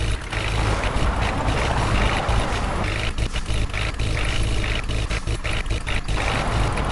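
Heavy diesel machinery running with a steady low rumble.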